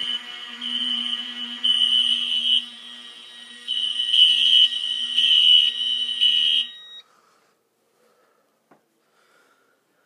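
Home fire alarm horn sounding a loud, shrill alarm tone that cuts off suddenly about seven seconds in, when the silence button on the fire alarm panel is pressed. A faint click follows in the quiet.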